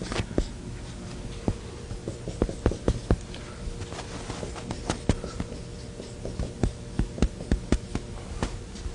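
Writing on a board during a lecture: irregular sharp taps of the writing tool against the board, one to several a second, with short pauses between strokes.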